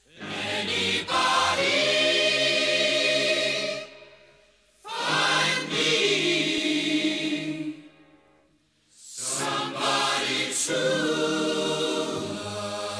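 Choral music soundtrack: a choir singing three long, held phrases, each dying away for about a second before the next begins.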